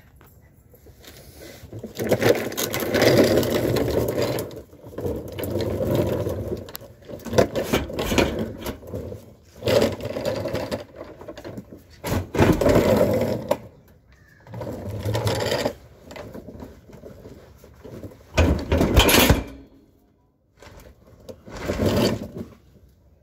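A cordless power tool run in short bursts of one to two seconds, over and over, driving out the through-bolts that hold a storage case to a vehicle's frame.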